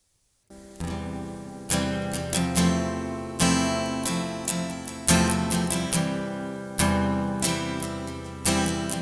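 Instrumental opening of a worship song: acoustic guitar strumming chords in a steady rhythm, starting about half a second in after a brief silence.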